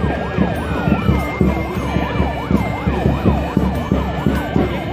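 Electronic sirens sounding together: a fast yelp sweeping up and down about three to four times a second over a slower wail that rises and falls, with low rhythmic thudding underneath.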